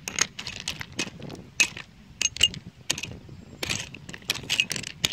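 Handling noise from a phone camera being held and turned in the hands: irregular clicks, knocks and scrapes right on the microphone.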